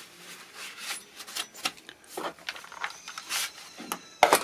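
A cloth rag wiping down the dirty plastic and metal housing of a chainsaw, in irregular rubbing strokes. The strokes get louder about four seconds in as the wiping moves to the bench mat.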